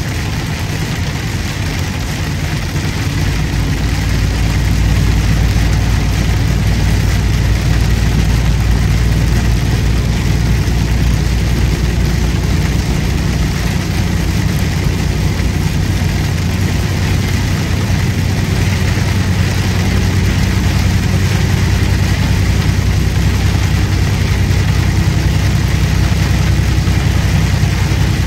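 Truck engine running steadily while driving, heard from inside the cab, over a steady hiss of road and rain noise. The engine grows louder about four seconds in and then holds steady.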